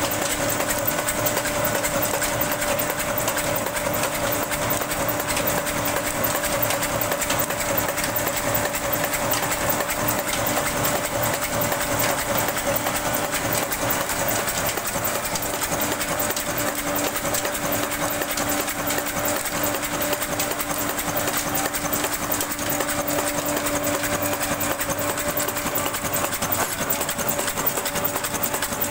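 Old Ruston Hornsby horizontal diesel engine running steadily, with a fast, even mechanical clatter from its moving parts and a steady hum.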